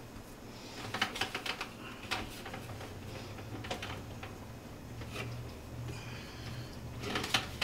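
Light clicks and taps of hands knocking against the clear plastic bowl of a food processor while pressing crumbly pastry dough into a ball, in a cluster about a second in and again near the end, over a low steady hum.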